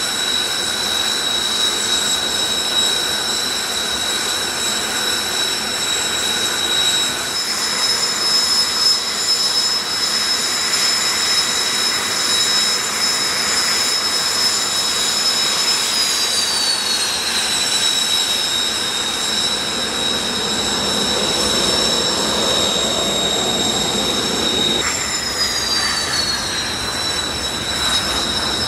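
Jet turbine whine from JASDF Blue Impulse Kawasaki T-4 jets, whose twin turbofan engines hold a steady high whine over a rush of engine noise. The whine glides down in pitch about halfway through and again near the end.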